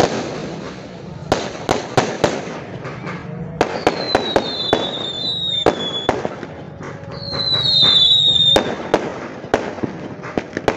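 Aerial fireworks going off in quick succession: sharp bangs at uneven intervals, with two whistles that fall slightly in pitch, about four seconds and seven seconds in.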